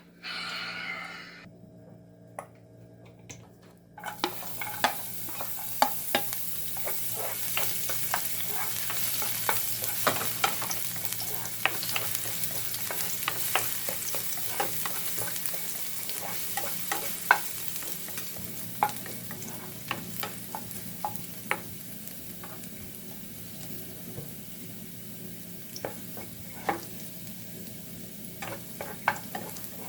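Shrimp and bell pepper stir-frying in a pan. A steady sizzle starts about four seconds in, with frequent clicks and scrapes of a utensil stirring against the pan, over a steady low hum.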